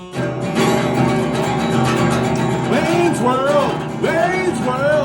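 Intro music led by guitar, starting at once; from about three seconds in, swooping notes that rise and fall play over it.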